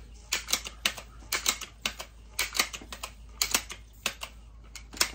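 Pump lever of a Seneca Dragonfly MK2 .22 multi-pump pneumatic air rifle being worked, stroke after stroke. It makes sharp mechanical clicks and clacks in small groups about once a second as the air cylinder is charged.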